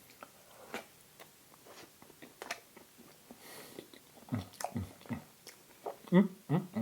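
Close-up eating sounds: chewing and wet mouth clicks and smacks while eating pumpkin spice cheesecake, with a few short low hummed 'mm' sounds near the end.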